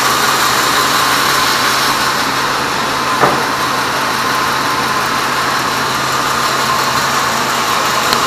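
Sawmill log band saw running with a steady high whine over a low motor hum; a short knock about three seconds in.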